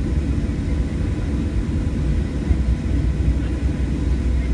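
Boeing 737 jet engines and airframe rumbling steadily, heard from inside the passenger cabin as the airliner rolls slowly on the ground, with a faint steady whine above the rumble.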